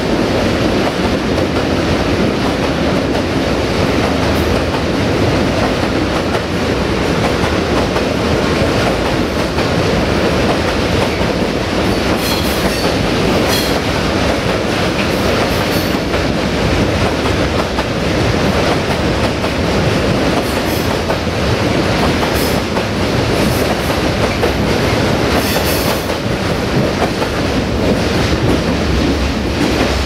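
Freight train wagons rolling past close by: a steady heavy rumble with wheels clacking over the rail joints, and a few brief high-pitched wheel squeals in the middle stretch.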